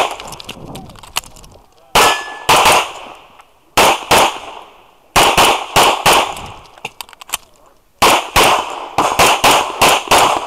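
1911-style pistol firing rapid strings of two to four shots in quick succession, with gaps of one to two seconds between strings while the shooter moves to the next targets; faint ticks fall between the shots.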